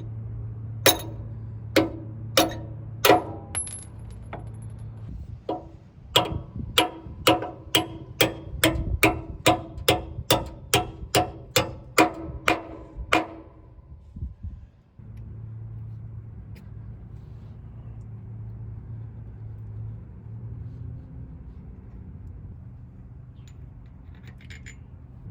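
Hammer blows ringing on steel: four strikes, a pause, then a run of about fourteen evenly spaced strikes, about two a second. A steady low hum runs underneath.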